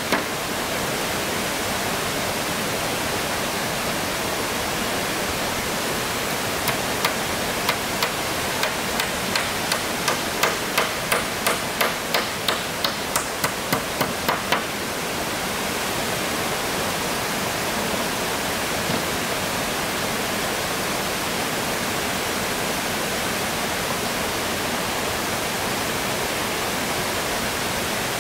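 Hammer blows on the wooden roof boards, a run of sharp strikes about three a second from about six seconds in to about halfway, then stopping. Under it a steady rush of stream water.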